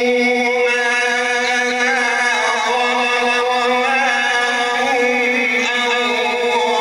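A male qari reciting the Quran in melodic tajweed style into a microphone, holding one long note on a single vowel with slow wavering ornaments.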